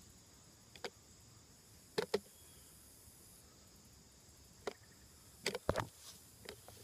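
A few light snaps and crunches of dry leaves and twigs in woodland, with a cluster of three near the end. This fits careful footsteps through leaf litter.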